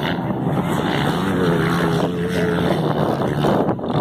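Dirt bike engine running at varying revs, its note rising and falling.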